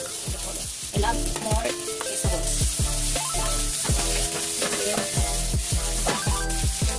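Shredded cabbage and bell pepper sizzling as they stir-fry with carrots in a hot metal pan, stirred with a spatula. Background music with a steady beat plays underneath.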